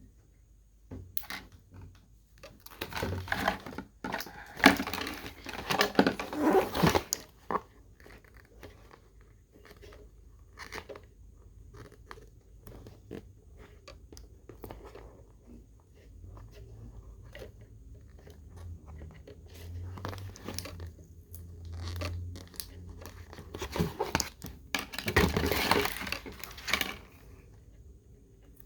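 Toy packaging being handled and torn open: crinkling and tearing in two louder spells, a few seconds in and again near the end, with scattered clicks and taps between.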